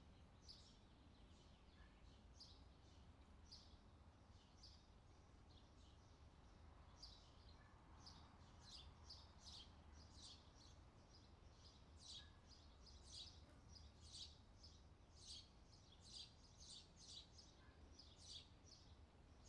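Faint chirping of small songbirds, a string of short high chirps that starts sparse and gets much busier about halfway through, over a low steady hum.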